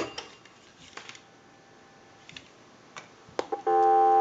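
A few light clicks, then a steady telephone dial tone comes on about three and a half seconds in and holds, the loudest sound here.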